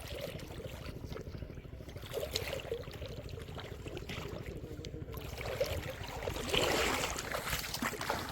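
Shallow river water trickling and sloshing, with small clicks and light splashes that grow louder about five and a half seconds in.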